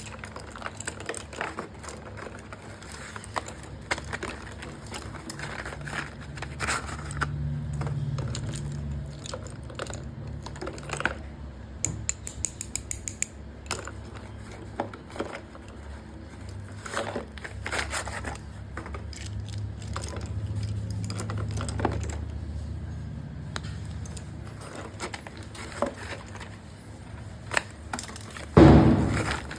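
Slate pencils and their plastic packaging being handled: irregular light clicks and clatter of small hard sticks with some crinkling, and one loud thump near the end.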